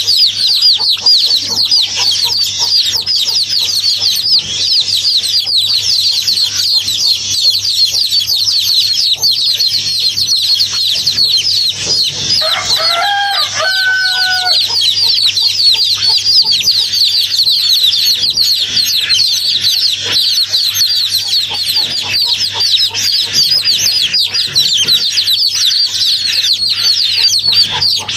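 A dense, continuous chorus of rapid, high-pitched chirping from many birds, with one longer, lower call about halfway through.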